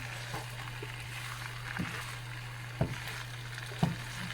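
Fries frying in hot oil: a steady sizzling hiss over a steady low hum, with two sharp knocks about three and four seconds in.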